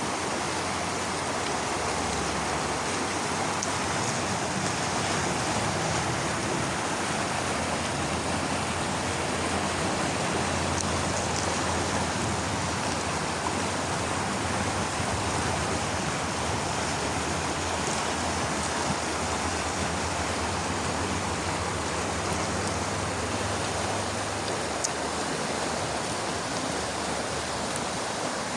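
Steady rushing of flowing water, with a few faint, short high ticks here and there.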